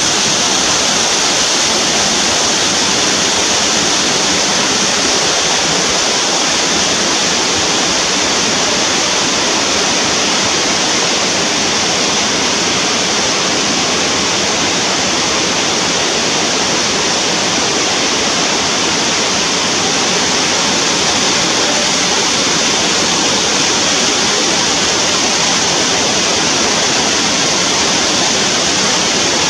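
Waterfall: a loud, steady rush of falling water with no change or break.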